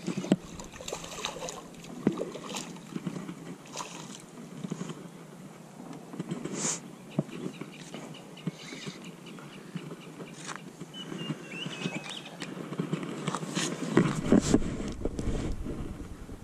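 Fishing spinning reel being wound in while a hooked fish is brought to a jetty, with scattered clicks and knocks of handling the rod and gear. A low rumble joins over the last couple of seconds.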